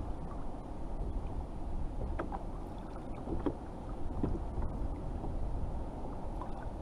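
Steady low rush of wind on the microphone and small waves lapping around a kayak on choppy sea, with a few faint short ticks.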